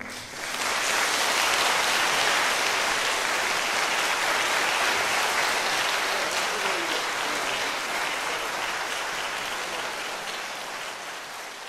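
Audience applauding, starting about half a second in and slowly tapering off.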